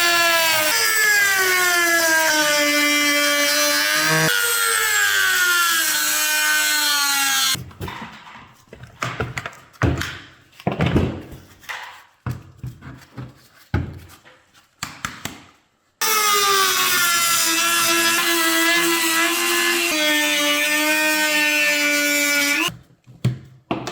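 Handheld power tool cutting, its motor note sinking in pitch as it loads up in the cut. It stops about seven seconds in for several seconds of knocks and clatter, then runs and cuts again until shortly before the end.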